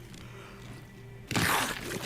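A quiet stretch with a low steady hum, then about a second and a half in a sudden loud rushing, crashing noise that carries on: a fight sound effect on an anime soundtrack.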